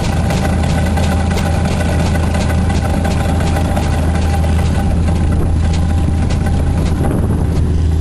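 Heavy engine of a ploughing rig running steadily, a low hum with an even, rapid beat.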